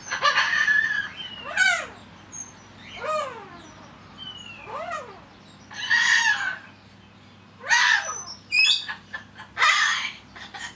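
Corella parrot chattering to itself: a run of about eight short calls, some arching whistled notes that rise and fall in pitch, others harsher squawky bursts.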